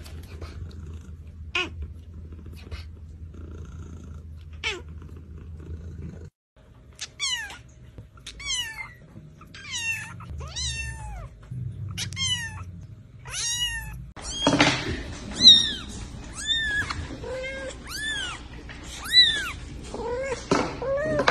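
Cats mewing in three short scenes. First come a few short, sharp cat calls. Then a very young kitten gives thin, high mews, each falling in pitch, about one a second. Last, another tiny kitten mews more loudly and repeatedly, each call rising then falling.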